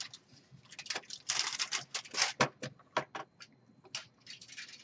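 Thin aluminum-foil heat shield crinkling and crackling as it is peeled off a laptop motherboard and handled, in irregular bursts with a few sharp clicks.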